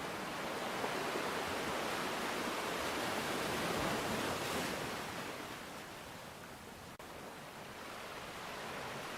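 Ocean surf: a wave's rushing wash swells for about four seconds, then fades away.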